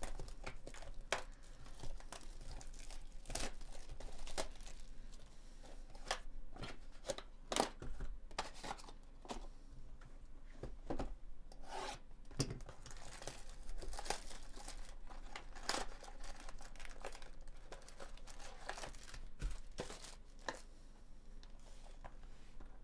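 Plastic shrink wrap being cut and torn off a cardboard trading-card hobby box, then the box opened and foil card packs handled: scratchy rubbing, rips and crinkling, with many small clicks and taps.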